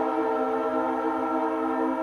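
Leslie S3L three-chime locomotive air horn, with original unmachined aluminum Tabby heads and bells 25, 31 and 44, blowing a long steady chord.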